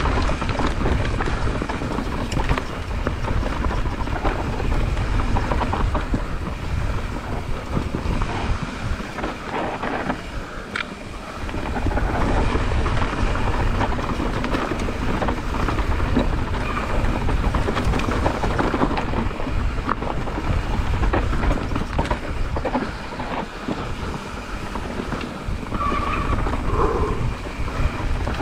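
Mountain bike rattling over a rough, rocky trail at speed: tyre noise and clatter from the bike, with wind buffeting the microphone.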